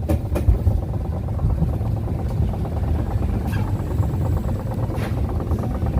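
Small roller coaster train running along its track: a steady low rumble with a fast, even rattle that comes in about two seconds in, and a few clicks.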